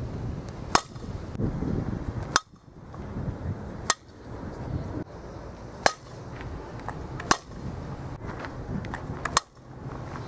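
Softball bat striking tossed softballs in batting practice: six sharp cracks, one about every one and a half to two seconds.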